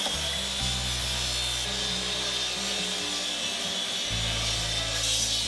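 Power miter saw blade cutting through a live-edge walnut slab, a steady cutting noise, over background music with a low bass line.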